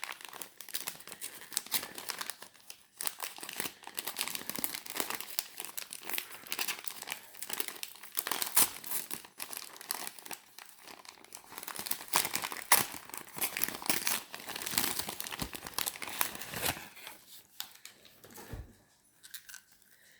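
Paper wrapping being handled and pulled open: continuous crinkling and crumpling with sharp tearing crackles, dying down about three seconds before the end.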